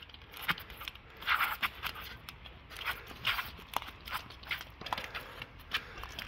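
Quick, irregular footsteps of sneakers on a plastic-tile sports court: light clacks and shoe scuffs as two fighters shuffle and step around each other.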